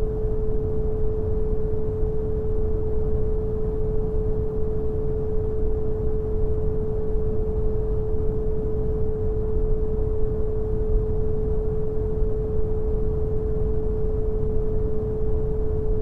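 Steady brown noise, strongest in the low end and thinning out toward the highs, with a single pure 432 Hz tone held unchanging over it.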